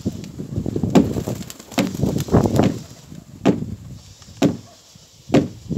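Strong gusty wind buffeting the microphone: a run of low rumbling blasts, about one a second, each ending in a sharp pop.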